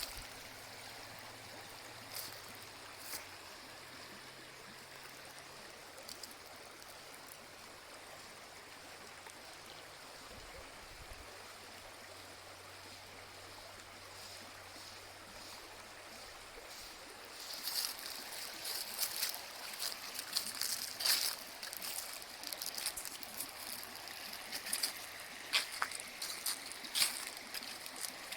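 Outdoor nature ambience: a steady soft rush, like running water, joined about two-thirds of the way in by many irregular crackles and splashy clicks.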